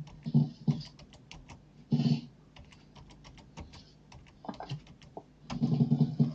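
Typing on a computer keyboard: a quick, irregular run of key clicks, with a few heavier low thuds among them, the longest cluster near the end.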